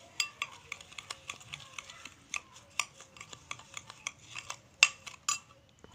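A metal spoon clinking and scraping against a glass bowl while stirring crushed Oreo cookie crumbs with melted butter, in quick irregular taps, with one louder clink a little before the end.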